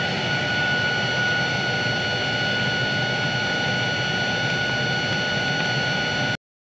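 Ryobi cordless blower running steadily with a constant whine, blowing air into the bottom opening of a burn barrel to fan the fire. It cuts off suddenly near the end.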